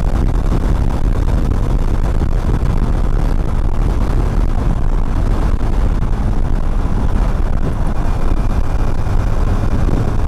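Steady wind rush on the microphone of a motorcycle rider at speed, with the engine and road noise underneath.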